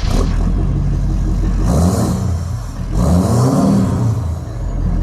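Motor vehicle engine running under load, its pitch rising and falling as it revs, with a rushing noise over it.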